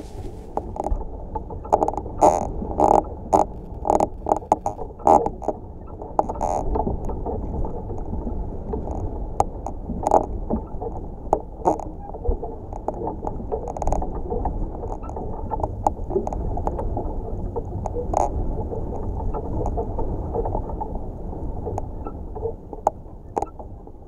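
A wind-blown tree heard through a contact microphone strapped to a branch. A steady low rumble of the wood flexing in the wind, with scattered sharp clicks and knocks from the branches, most frequent in the first few seconds.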